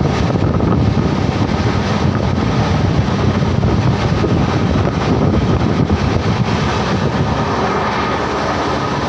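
Steady rumble of a moving passenger train, heard from inside the coach by an open window, with wind buffeting the microphone.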